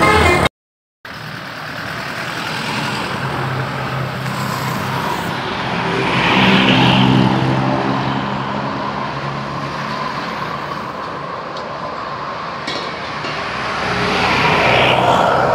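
Road traffic passing close by: a steady rush of tyres and engines, with a heavy vehicle's engine drone swelling and fading about six to seven seconds in, and another vehicle going by near the end.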